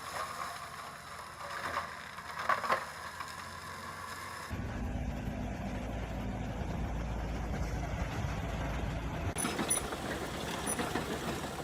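Excavator at work, in a few cut-together shots: metallic clanks in the first few seconds, then a steady low engine drone, then sharper clicking and rattling in the last two seconds.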